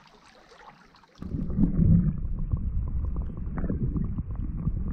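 Muffled underwater rumble of moving sea water with scattered small crackling clicks, picked up by a camera microphone submerged among shallow rocks. It starts abruptly about a second in and then stays dense and low.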